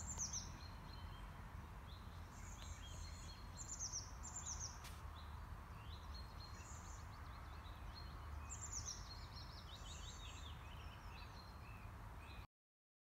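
Small songbirds singing in repeated quick descending phrases over a steady low rumble. The sound cuts out abruptly near the end.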